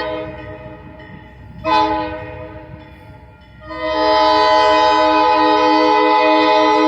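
Diesel locomotive air horn sounding a chord of several steady tones, from an Alco RS-11. A long blast cuts off at the start, a short blast comes about two seconds in, and a long blast starts about four seconds in and is held. The short-then-long ending is that of the grade-crossing signal.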